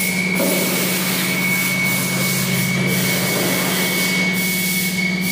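Steady machine-shop running noise: a constant hum with a thin, steady high whine over an even hiss, from the CNC machine and shop machinery running.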